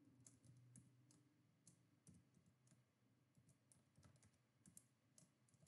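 Very faint computer keyboard typing: scattered, irregular key clicks.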